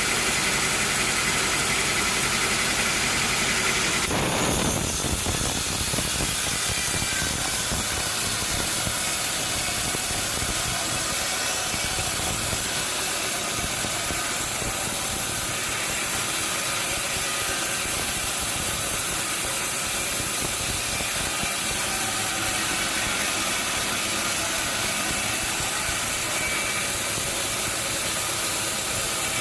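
Sawmill machinery running: an engine hum that drops away about four seconds in, leaving a steady hiss for the rest of the time.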